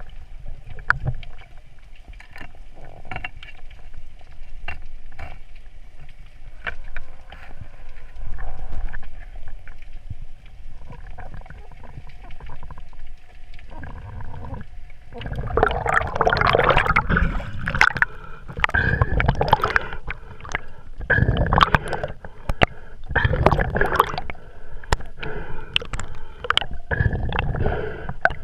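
Water sloshing and gurgling around the microphone, with scattered knocks and clicks; it grows louder and busier about halfway through.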